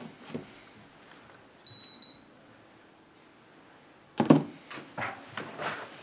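A single short, high beep from a Fujitsu RLS2 heat pump's indoor unit as it takes the power-off command. A couple of seconds later comes a knock and then a few lighter plastic clicks as the unit's front cover is handled.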